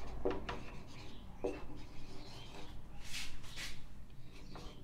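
Marker pen writing on a whiteboard: a string of short, faint strokes as letters are written out.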